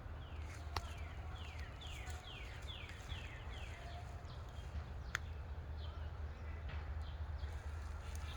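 A bird singing a quick series of about eight falling whistled notes, then a few faint scattered chirps, over a steady low rumble. Two sharp clicks, about a second in and about five seconds in.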